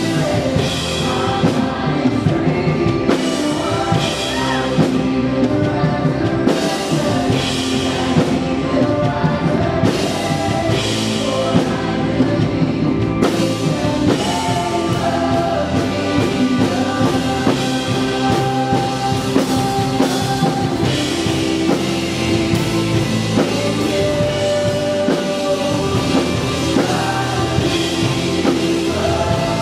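Worship band playing a song live with singing: guitars, keyboard and drums, steady and full.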